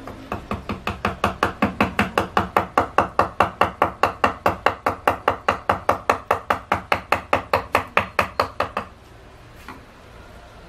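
Wood-carving chisel being tapped into cedar in a fast, even run of sharp strikes, about five a second, which stops about a second and a half before the end.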